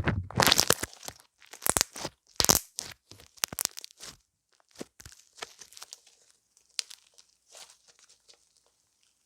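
Irregular crackling and crinkling, like something being crumpled or torn: dense and loud for the first few seconds, then sparser and fainter.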